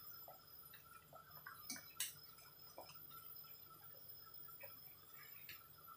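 Near silence: a pot of tom yum fish soup simmering on a gas stove, with faint scattered ticks and pops from the bubbling, about one a second and never in a steady rhythm.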